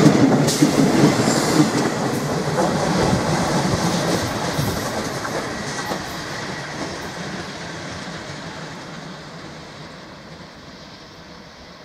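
Czech Railways Regionova diesel railcar passing close by, its wheels clattering over the rail joints. It is loudest at the start, then fades steadily as it moves away.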